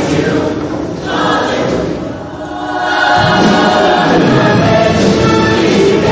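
Large mixed show choir singing in full voice over music, easing off briefly about two seconds in and then swelling back in.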